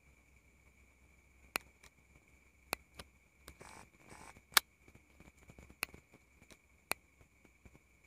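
Scattered sharp clicks, about six spread unevenly, with a short rustle just before the halfway point, over a steady high-pitched drone of night insects.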